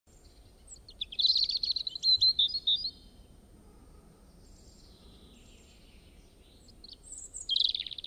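Small songbird singing: a quick trill of chirps about a second in lasting some two seconds, then a few more chirps near the end.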